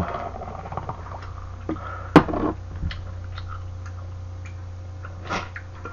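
Drinks being poured into a glass beer mug, beer from a can and then soju from a bottle, over a steady low hum with small clicks. A sharp knock about two seconds in as the can is set down on the table, and a softer knock near the end.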